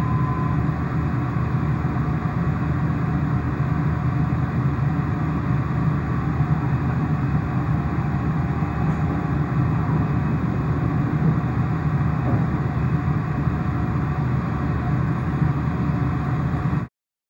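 Steady low rumble and hiss of cabin noise inside an E4 series Max Shinkansen car, cutting off abruptly near the end.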